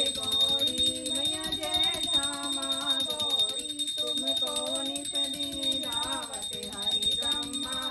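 Devotional song with a singing voice, accompanied throughout by a small bell ringing rapidly and evenly.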